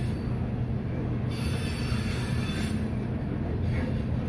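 Freight train of hopper cars rolling past: a steady low rumble of wheels on rail, with a high hissing wheel squeal rising over it for about a second and a half starting just after one second in.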